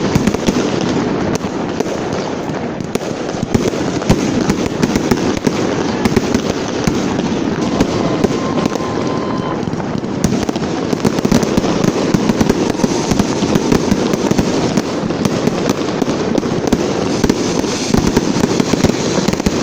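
Fireworks display going off in a dense, continuous barrage of rapid bangs and crackles.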